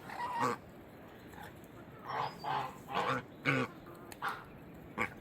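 Domestic geese giving a string of short honks while they eat.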